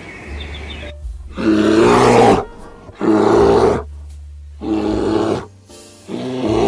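An animal calling over and over: four loud, drawn-out calls about a second and a half apart, the first the longest, over background music.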